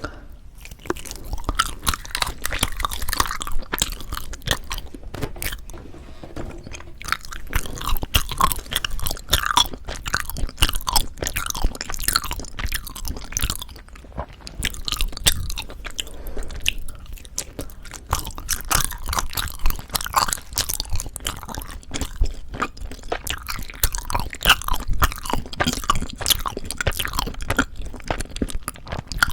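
Close-miked chewing of soft, sticky Korean rice cake (tteok), with wet, sticky mouth sounds and smacking running on irregularly.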